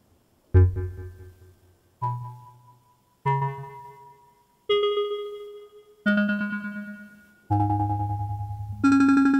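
Make Noise modular synthesizer playing seven separate notes, about one every second and a half, each at a different fixed pitch and each struck sharply then dying away. These are oscillator tones plucked through QXG low-pass gates as the PoliMATHS channels are set off one at a time.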